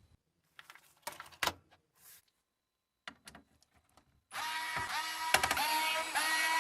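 A few knocks and clicks of parts being handled, then, a little past halfway, a small electric power tool starts running steadily, its pitch dipping and recovering a few times as it takes load.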